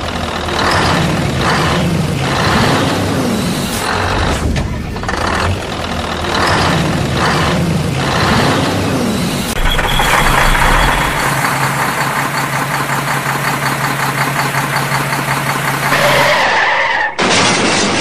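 Vehicle engine sound effect. It revs up and down several times, then runs steadily at one pitch, and a loud burst comes near the end.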